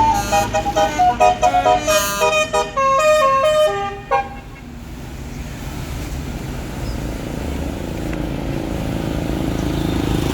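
Bus basuri telolet horn playing a quick tune of stepped notes, cutting off about four seconds in. After it, vehicle engine and road noise slowly grow louder.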